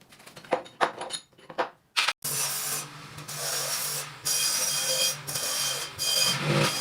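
Scraping on a rusty piece: a few short separate strokes, then continuous rasping with brief pauses, like filing or brushing off rust.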